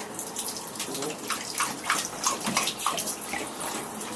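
Bulldog lapping water in a bathtub, quick irregular splashy laps over the sound of running water.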